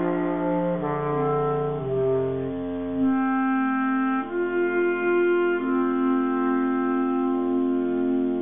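Bass clarinet quartet playing slow held chords, with the harmony shifting every second or so; the lowest voice drops out about two seconds in, leaving the upper parts sustaining.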